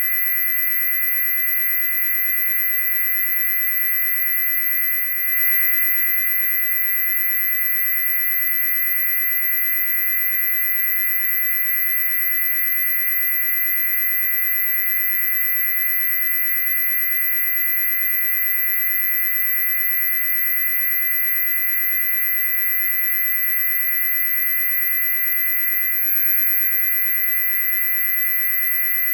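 Loud, steady high-pitched tone: a piercing, very high whine layered over a cluster of fainter, lower tones, holding without change.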